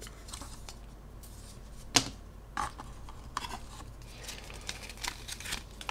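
Hands handling cardboard packaging and cards: one sharp click about two seconds in, then scattered light taps and ticks of card and cardboard, more frequent near the end.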